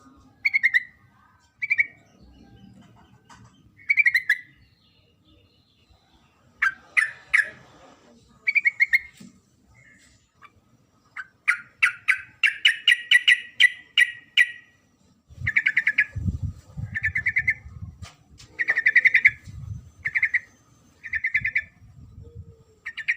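Yellow-vented bulbul (trucukan) calling in short, bubbly chattering phrases every second or two, with a longer run of rapid notes about twelve seconds in; this is the female's call used to draw males. A low rumble sits underneath in the second half.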